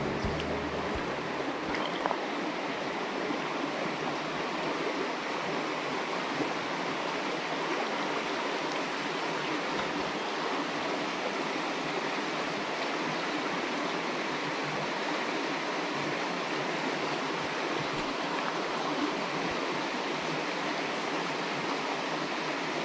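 Shallow, stony-bottomed stream running steadily over rocks and riffles: an even rush of water.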